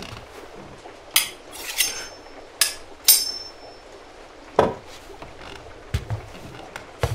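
Sharp metallic clinks with a brief bright ring, four of them in the first three seconds or so, as a large knife blade is handled on a wooden table; then three dull thumps.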